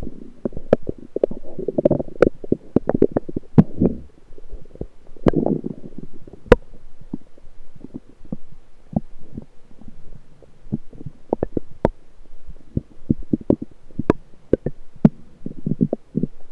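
Lower intestinal gurgling heard through an electronic stethoscope pressed to the belly. Bubbling gurgles come in bursts about two seconds in, around five seconds, and again from about twelve to fourteen seconds, with sharp little pops and clicks in between.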